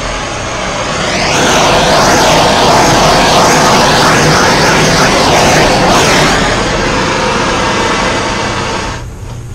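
Handheld propane torch burning with a loud rushing hiss as it is swept over wet acrylic paint to pop air bubbles. The tone wavers up and down as the flame moves. It swells about a second in and cuts off near the end.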